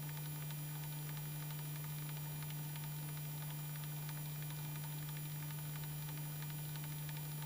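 Steady low hum with background hiss and faint crackle, holding at one pitch without rising or falling.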